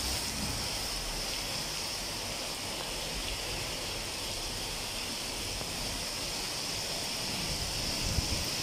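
Heavy downpour: a steady, even hiss of rain falling.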